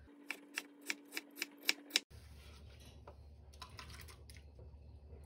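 A chef's knife dicing a raw potato on a wooden cutting board: a quick run of about ten sharp knife strikes over the first two seconds. Then fainter clicks and handling as the diced cubes are gathered into a bowl.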